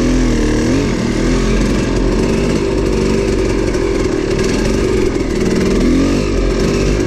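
Dirt bike engine running under way, its pitch rising and falling as the throttle is worked over rough double track.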